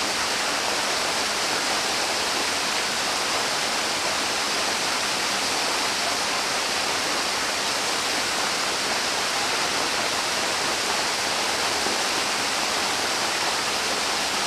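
River or stream water rushing steadily, an even hiss-like flow with no breaks.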